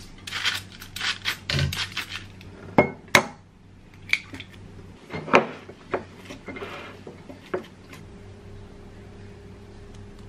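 Kitchen dishes and utensils clinking and knocking during food preparation, irregular, with a few sharp clacks. About eight seconds in the clatter stops and only a steady low hum is left.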